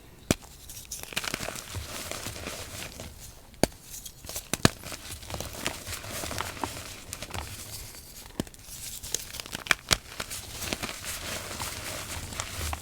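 Blocks of reformed gym chalk crushed by hand, crunching and crumbling continuously with sharp cracking snaps scattered through, the loudest a handful of single cracks.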